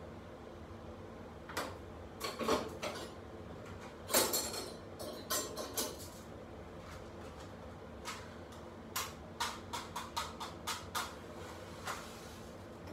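Matches being struck on a matchbox to light a gas stove burner: a string of short scratches and clicks, the loudest about four seconds in, then a quicker run of clicks near the end.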